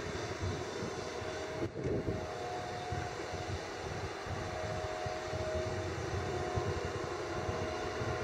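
Hitachi 350 tracked excavator's diesel engine running steadily under load as it digs and lifts a bucket of sand, with faint steady higher tones coming and going and a brief dip a little under two seconds in.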